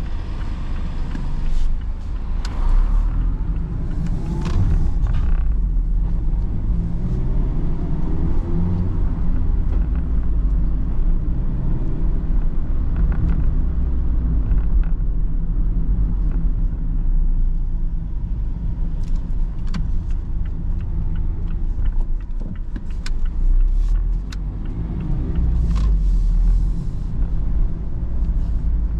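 Mazda ND Roadster being driven: its four-cylinder engine runs under a steady low rumble of road noise, the engine note rising and falling as speed changes. Scattered light clicks and ticks come over it, mostly in the second half.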